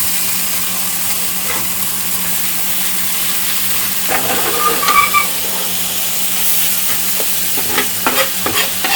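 Small vegetable uttapams (dosa batter with onion, carrot and cabbage) frying in oil in a hot pan, a steady sizzle, with a few short clicks and scrapes about halfway through and again near the end.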